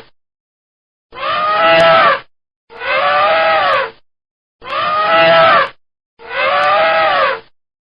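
Elephant trumpeting: the same call played four times, each about a second long, rising and then falling in pitch, with short silent gaps between repeats.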